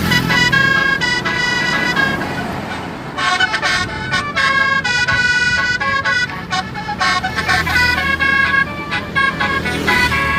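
Basuri telolet bus horn, a set of multi-tone horns, playing a quick melody of stepped notes. It pauses briefly about three seconds in, then plays on.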